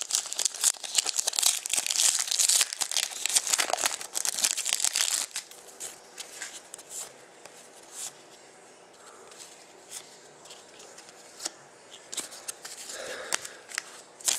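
Shiny foil wrapper of a trading card pack being torn open and crinkled, a dense crackling rustle for about the first five seconds. It then drops to a quieter stretch of scattered soft clicks and rustles as the cards are fanned through, with the wrapper crinkling again near the end.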